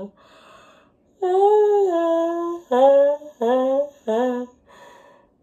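A woman's sung, yawning laughter, her mouth muffled behind her hands. A breathy intake comes first, then about a second in one long held note, then three short pitched 'ha' laughs in quick succession, and a soft breath near the end.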